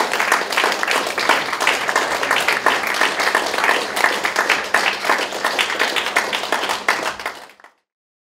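Audience applauding, a dense patter of many hands clapping, fading out to silence about seven and a half seconds in.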